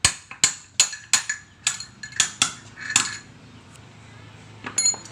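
Sharp metal-on-metal taps, about ten in three seconds and then a quick cluster near the end: a 6902 ball bearing being tapped out of the CVT pulley of a Honda Vario 110 scooter.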